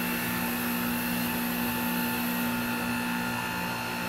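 Hunter Revolution automatic tire changer running, its drive turning the wheel while the mount head works the tire off the rim: a steady machine hum with several held tones.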